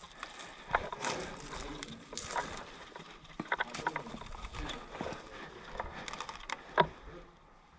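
Rustling and scattered sharp clicks and knocks of a player moving about, with one louder knock near the end.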